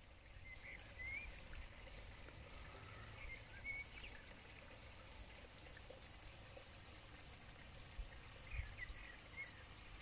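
Faint steady trickle of water from a garden pond's filter outflow.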